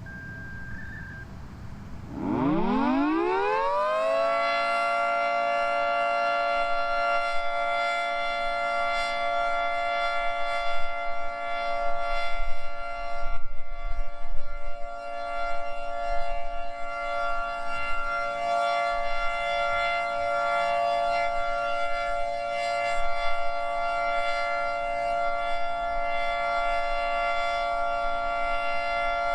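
Federal Signal 2T22 dual-tone outdoor warning siren winding up about two seconds in, rising in pitch and settling into a steady two-note chord that it holds, its level rising and falling: the steady Alert signal.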